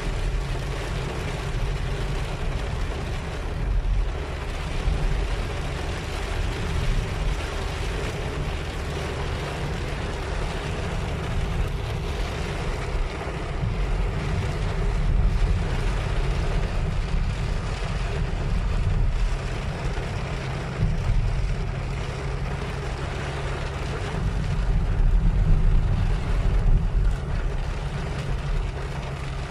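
Heavy rain beating on a car's windshield and roof, heard from inside the moving car over a steady low engine and road rumble. The loudness swells and eases every few seconds.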